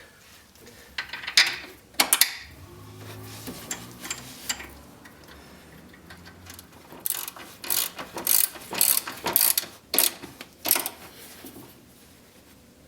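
Ratcheting clicks and metal tool noises from hand tools working on the winch mount, with a low steady hum for a few seconds in the first half and a busy run of clicks after the middle.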